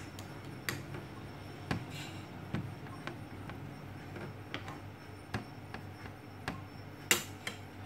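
Metal spoon and fork clinking and tapping against plates while mashed fermented cassava is scooped onto a spring roll wrapper. Scattered sharp taps, about nine in all, the loudest about seven seconds in.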